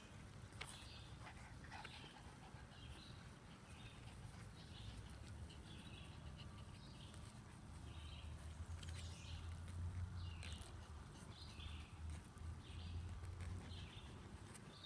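Chihuahua puppies whimpering: faint, short, high-pitched squeaks repeating about once a second, with a low rumble swelling in the middle.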